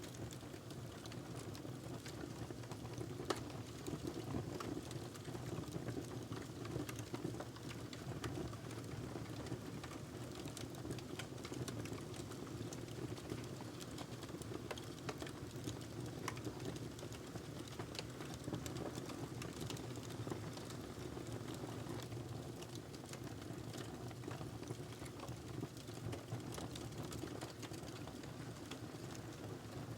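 Wood fire crackling, with frequent small pops over a steady low rush and one louder pop about three seconds in.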